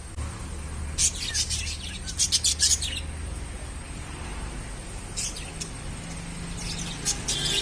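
Budgerigars chirping in short, rapid bouts of high chirps, four bouts a couple of seconds apart.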